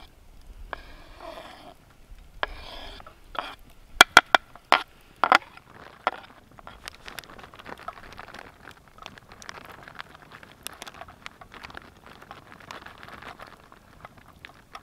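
A knife scraping diced peppers off a wooden cutting board into a metal cooking pot, twice, followed by a run of sharp taps and clicks of knife and board against the pot about four to five seconds in. Then a soft, irregular crackling from the pot on the log fire.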